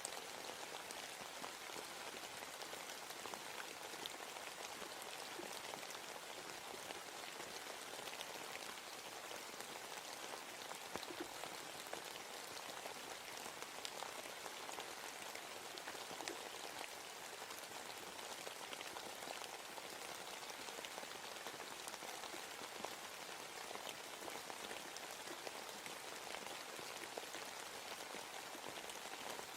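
Steady rain falling in a forest: an even patter, with a few louder single drops standing out now and then.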